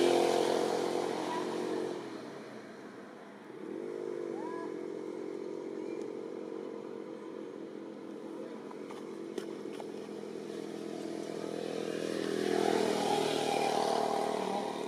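Engine hum of passing motor vehicles. It swells near the start and again near the end, with a brief rise and fall in pitch about four seconds in.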